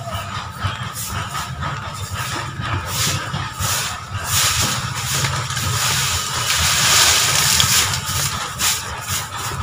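Stick broom sweeping dry leaves across bare ground: irregular scratchy strokes, with a longer stretch of sweeping hiss about two thirds of the way in, over a steady low rumble.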